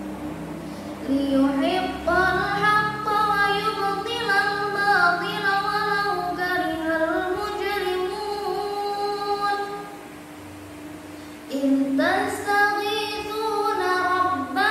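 A young girl reciting the Quran solo in the melodic, sung style, holding long ornamented notes that bend up and down, with no accompaniment. She pauses for breath about ten seconds in and starts a new phrase shortly after.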